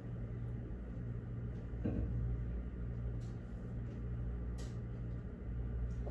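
Quiet room tone: a steady low hum, with a faint short sound about two seconds in and a brief soft noise a little past halfway.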